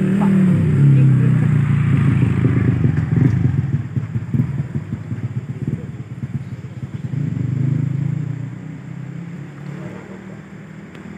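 A vehicle engine running close by, loud at first, then fading away, with a brief swell again about eight seconds in.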